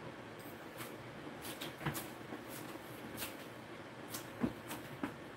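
A handful of light, separate clicks and knocks of bottles and jars being picked up and handled on a kitchen counter, over faint room noise.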